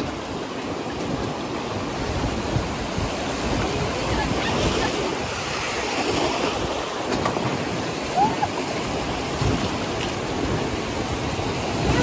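River water rushing steadily, with wind noise on the microphone.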